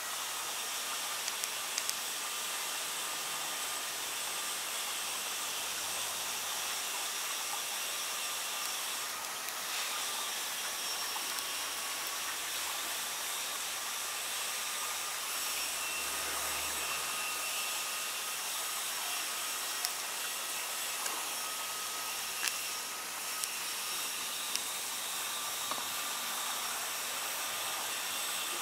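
Steady hiss with a faint, slightly wavering high whine and a few tiny ticks: the noise floor of a camera's built-in microphone with outdoor ambience.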